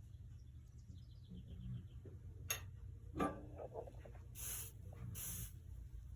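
Soldering iron working lead solder over fluxed seams on a stained-glass piece: two short hissing sizzles, after a few light clicks and taps. A faint steady low hum lies underneath.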